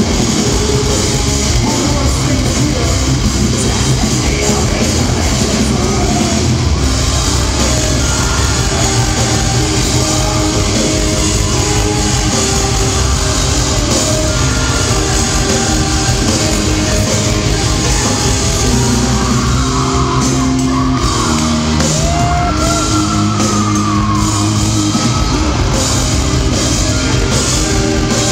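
A metal band playing live at full volume in a large hall: distorted guitars, bass and drums, with the singer shouting and singing over them.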